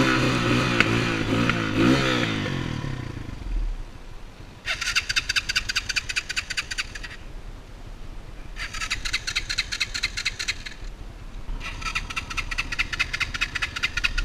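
Enduro motorcycle engine revving, its pitch dropping away about two seconds in and fading out by four seconds. Then three bursts of rapid, harsh bird chattering, each about two seconds long, with short gaps between them.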